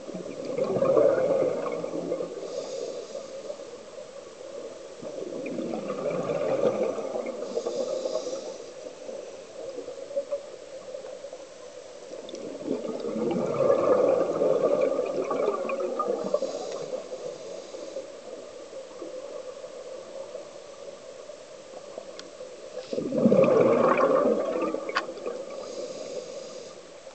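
Scuba regulator breathing underwater, four slow breaths. Each has a faint hiss on the inhale, then a louder bubbling rush of exhaled air lasting a couple of seconds.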